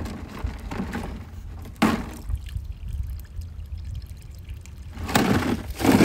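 Water poured from a plastic jug into the casing of a small gas-engine water transfer pump, priming it before it is started. A knock about two seconds in and louder knocks near the end as the jug is handled and set down.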